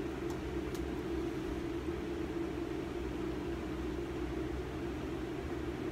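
Steady low hum with a faint hiss: background room noise, with two tiny faint ticks within the first second.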